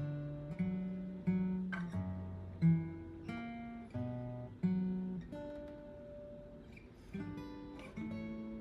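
Guitar fitted with new bone parts at the strings, played for a sound check. Single picked notes and chords ring out and fade one after another, a few of them picked harder than the rest.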